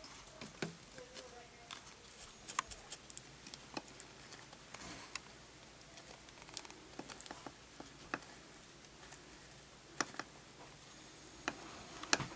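Faint, irregular clicks and scratches as a metal pick stirs salt crystals in a metal spoon heated over a candle, the crystals shifting and scraping against the spoon.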